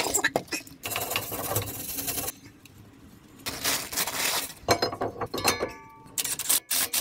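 Plastic wrapping crinkling as a new Brembo brake disc is unwrapped, then metallic clinks and knocks with a short ring as the steel disc is handled and slid onto the wheel hub.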